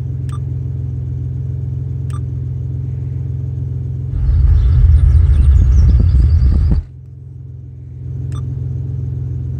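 Truck engine idling, heard inside the cab as a steady low rumble, with a few faint clicks. About four seconds in, a loud burst of heavy subwoofer bass from the truck's stereo comes in for about two and a half seconds and cuts off suddenly.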